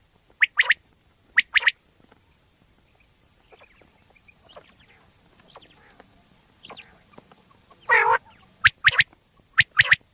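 Common quail calling: short, sharp notes in quick pairs, a run of softer calls in the middle, then a louder, longer call about eight seconds in followed by a few quick sharp notes.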